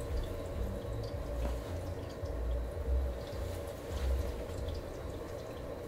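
Cotton shirt fabric rustling as it is handled and turned over, with scattered faint ticks and dull low thumps underneath.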